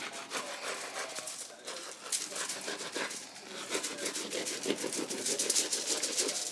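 A knife sawing through the crust of a round cob loaf: repeated crackly rasping strokes, growing busier from about two seconds in.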